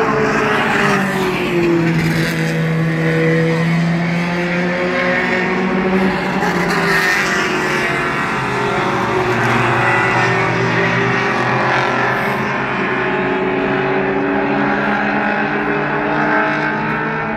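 Mini Stock race cars running laps on an oval track: several engines overlap, their pitch rising and falling as the cars accelerate, lift and pass by.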